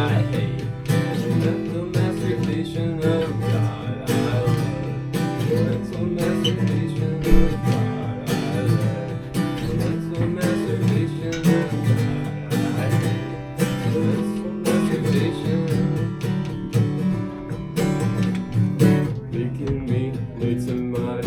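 Acoustic guitar strummed steadily without singing: an instrumental passage between the verses of a song.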